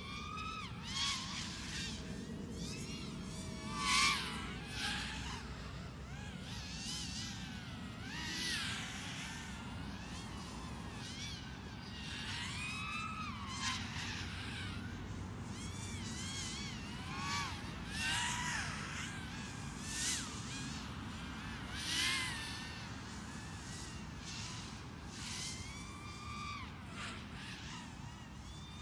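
Racing quadcopter's motors whining, the pitch swooping up and down with throttle changes, swelling loudly each time it passes close, the loudest about four seconds in and several more times in the second half.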